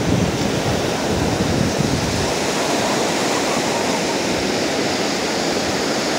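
Ocean surf: waves breaking and foam washing up the beach, a steady rush of water, with a deeper rumble in the first couple of seconds.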